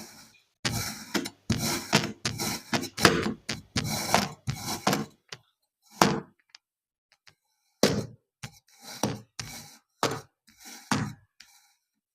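Knife cutting through kinetic sand: a series of short, crisp crunching slices in quick succession, a pause of over a second around the middle, then several more slices.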